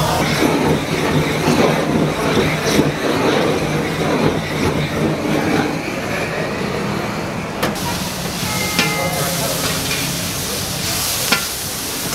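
Pork intestines (makchang) stir-frying and sizzling on a flat steel griddle, with metal spatulas scraping and clinking against the plate, and a handheld gas blowtorch hissing as it flames the food.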